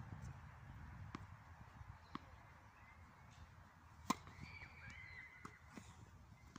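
Tennis serve: a racket strikes the ball with one sharp crack about four seconds in, the loudest sound, with softer ball taps a second or two before it and faint ones after.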